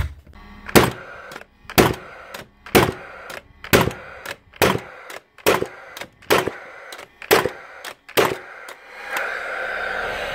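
Paslode IM350/90 cordless gas framing nailer firing nails into timber nine times in a row, about one shot a second, each sharp bang followed by a lighter click. It fires on every pull now that a new red stem adapter lets the full dose of gas through. A steady whir builds over the last second.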